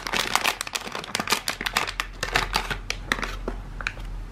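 Handling noise from gloved hands working a small circuit board and its coiled cable: a dense, irregular run of rustles, taps and clicks that thins out near the end.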